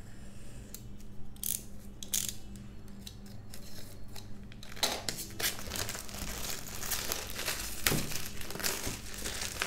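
Clear plastic shrink wrap on a cardboard product box being slit with a blade, a few short scratchy strokes, then the film being peeled off with continuous crinkling from about five seconds in.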